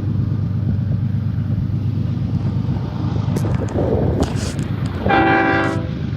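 Steady low rumble of a passing train, with a short blast of a locomotive's five-chime air horn about five seconds in. A few brief high-pitched noises come shortly before the horn.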